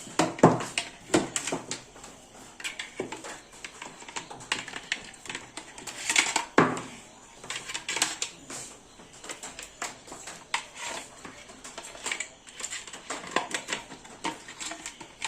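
Irregular clicks, taps and knocks of small hard objects being handled and set down, with a few louder knocks about half a second in and around six seconds in.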